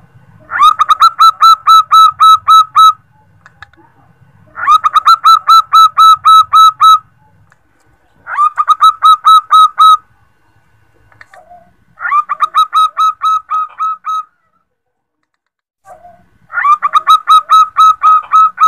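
Female zebra dove (perkutut) calling to a male: five bursts of rapid, evenly repeated high notes, about five a second, each burst about two seconds long and coming roughly every four seconds.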